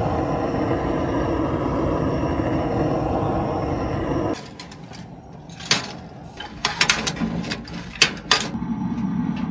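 Butane cartridge torch flame hissing steadily into the pellet burner to light the wood pellets, cutting off about four seconds in. Then several sharp metal clicks and clanks as the steel stove's front door latch and door are worked open.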